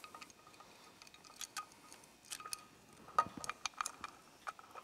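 Light metallic clicks and clinks of a camshaft and its cam chain being handled and seated in a 2008 Yamaha R6 cylinder head, in scattered small clusters, some with a brief ring. The clicks are most frequent from about three seconds in.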